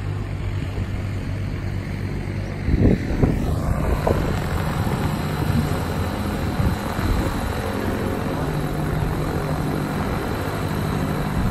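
Piston engines of light propeller aircraft running, a steady drone with a low engine hum, with a few brief bumps about three seconds in.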